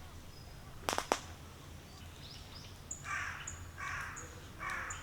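A bird calling harshly four times in quick succession about three seconds in, after two sharp clicks about a second in.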